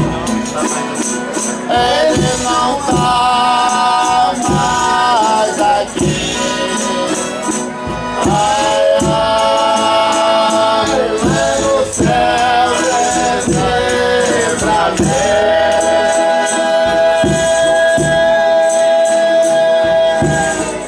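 Folia de Reis group singing a hymn in long held notes, several voices together, over a steadily beaten and shaken tambourine. The longest held note comes in the last third.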